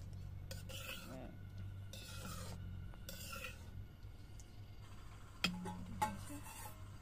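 Metal ladle scraping and stirring curry in a metal wok: a few short rasping strokes in the first few seconds, then two light knocks near the end, over a steady low hum.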